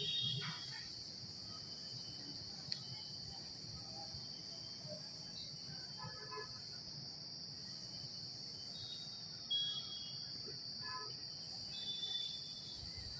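Steady high-pitched drone of insects calling, with a few faint short chirps near the start and again late on.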